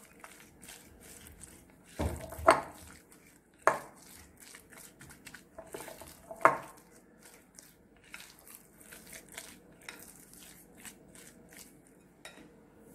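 Silicone spatula stirring grated raw mango with salt in a glass bowl: soft scraping and squishing with irregular clinks and knocks against the glass, a few of them louder in the first seven seconds.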